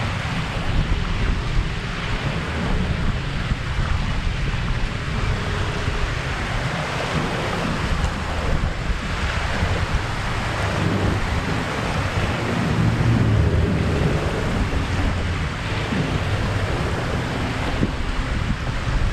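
Wind buffeting the microphone in a low, fluttering rumble, over small waves washing steadily onto the lake shore.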